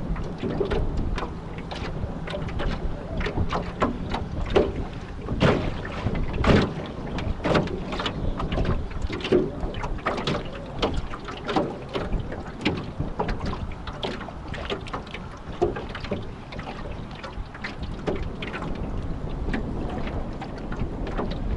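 Rough, wind-driven water splashing and slapping irregularly against a small fishing craft, over a steady rumble of strong wind on the microphone.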